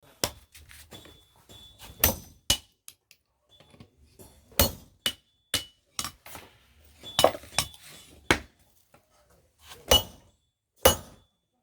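Blacksmith's hammer striking steel on an anvil while forging a plowshare: about a dozen irregularly spaced blows, each with a short metallic ring.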